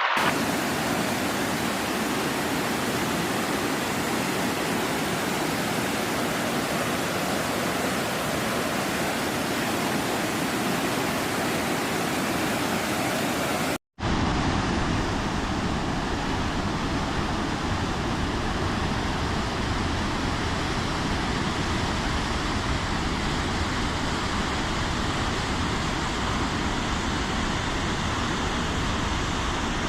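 Steady rush of flowing water, a dense even roar of white water. It breaks off for an instant about 14 seconds in, then a second stretch of rushing water follows with a slightly duller top.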